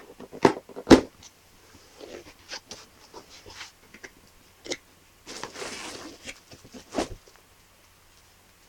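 Cardboard box being opened by hand: sharp clicks and taps of the flaps and lid, two loud ones about a second in, then a short scraping rustle of cardboard about five and a half seconds in and another click near the end.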